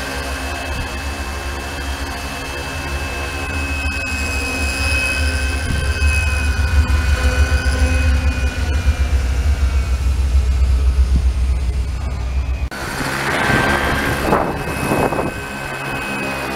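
Radio-controlled model helicopter with a diamond rotor head running and hovering: a steady low rotor hum under a motor whine that swells in the middle. About thirteen seconds in it cuts abruptly to a rougher rushing rotor noise.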